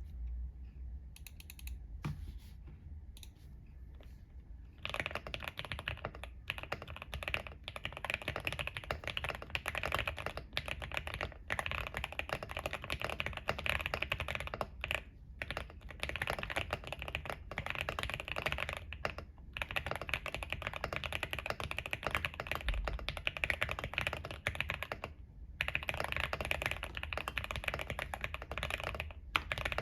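Typing on a QK65 mechanical keyboard with stock Gateron Oil King linear switches on an FR4 plate, packed with PE, plate and PCB foam. A few scattered keystrokes open it, then fast, continuous typing from about five seconds in, broken by a few brief pauses.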